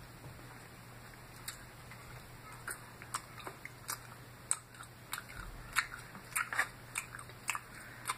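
Crisp crunches of raw salad being chewed close to the microphone: a few scattered crunches at first, then quicker and louder from about four seconds in.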